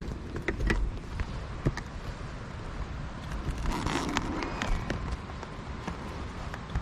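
Royal Enfield Continental GT 650 parallel-twin on the move, its stock exhaust heard through an action camera's built-in mic, mixed with gusty wind buffeting and scattered knocks.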